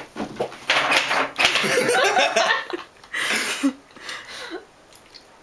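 A few sharp knocks on a table, then about two seconds of loud laughter and voices, and another short burst of voices just after three seconds in.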